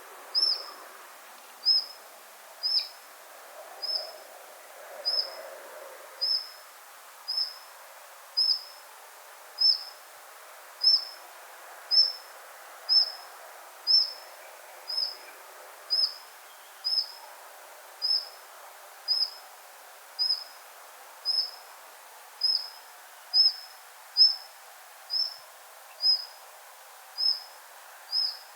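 An otter calling from the reeds: a short, high-pitched whistled peep, repeated evenly about once a second, each call dipping slightly in pitch.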